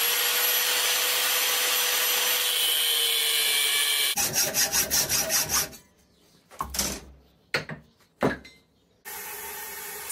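Angle grinder with a cutting disc running steadily at full speed while cutting through mild-steel square bar. About four seconds in it gives way to a second and a half of rapid pulsing, then a few separate knocks, and near the end a steady rushing noise from a gas forge.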